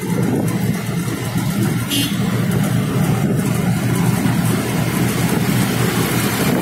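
Auto-rickshaw engine running steadily as it drives along, heard from the open passenger cabin together with road noise.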